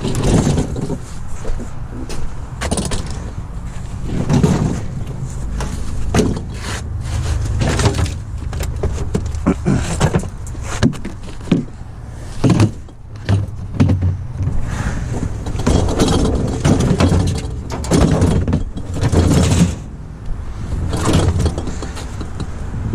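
A vehicle engine running steadily, with repeated knocks, clunks and clatter of metal items over it.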